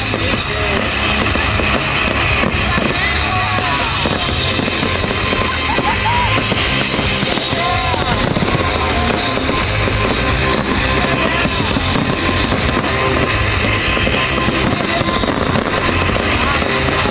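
Loud rock music with singing and drums, mixed with the bangs and crackle of display fireworks going off.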